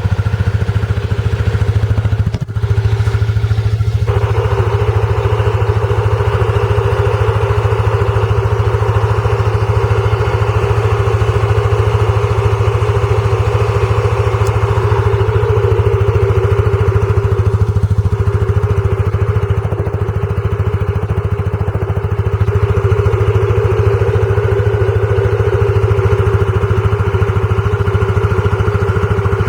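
PGO Tigra scooter's engine running steadily on its centre stand, driving the rear wheel, with an abnormal noise that the owner traces to the rear brake caliper; the loudness dips briefly about two and a half seconds in.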